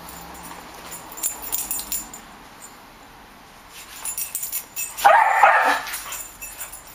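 Jack Russell Terrier barking in a short burst about five seconds in, the loudest sound here. Before it comes light jingling, which fits its collar tags as it darts about chasing flies.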